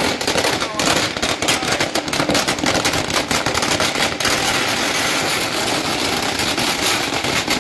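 A Murga Chhap 5000-cracker firecracker string (ladi) going off: a continuous, rapid crackle of small bangs with no let-up, a few louder reports standing out.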